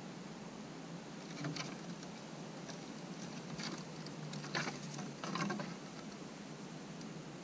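Eastern gray squirrel's claws scratching and pattering on weathered wooden fence boards as it climbs down head-first, in a few short scrapes over about four seconds, the loudest pair near the middle, over a steady low background hum.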